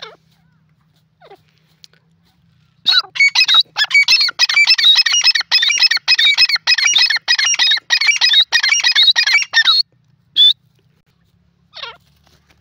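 Grey francolin calling at close range: a rapid run of loud, high, repeated notes lasting about seven seconds, followed by a single short note and then a fainter one.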